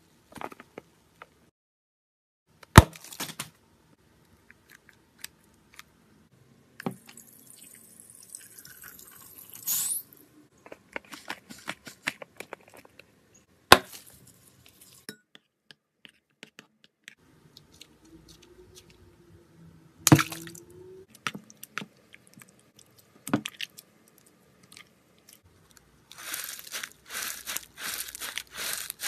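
Stressballs being cut open and squeezed over a glass bowl of slime: scattered sharp clicks and wet squishing, with a run of rapid squelches near the end.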